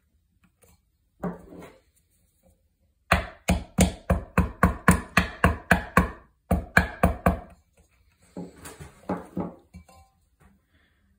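Rotax 377 rewind starter pulley being turned by hand in its housing, giving a run of sharp clicks about four a second. The clicks stop briefly, start again, then trail off fainter. A single knock comes just before the clicking.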